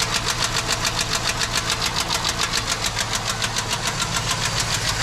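2006 GMC truck's 4.8-litre V8 running with a fast, even ticking, about eight ticks a second, which sounds like it's coming from the passenger side. The engine is misfiring, with misfires logged on cylinder 4.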